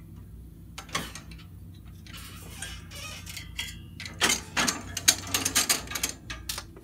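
Metal parts clicking and clanking as they are handled on a valve-work bench. A few scattered clicks come first, then a quick run of sharp knocks in the second half, ending in one louder clank, over a low steady hum.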